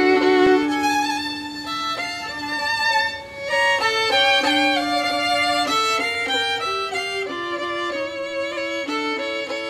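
Violin music: a single fiddle playing a melody in long held notes, often two notes sounding together.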